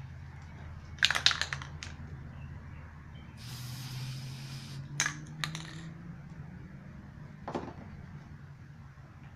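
Aerosol spray paint can letting out one short hiss of spray, about a second long, near the middle. Before and after it come a few sharp clicks and knocks of the can and tools being handled, the loudest a quick cluster about a second in.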